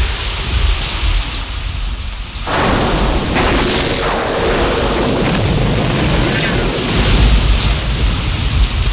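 Thunderstorm: heavy rain with deep rolling thunder rumbling underneath. The rain comes in loudly about two and a half seconds in and keeps up steadily.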